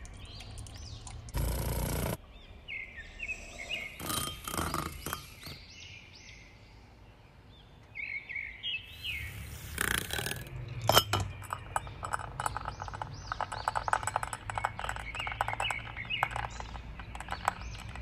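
Birds chirping in the background while coffee is made: a brief pour of water into a glass mug of instant coffee early on, then, from about eleven seconds in, dense rapid clicking as a handheld frother whips coffee in a glass bowl.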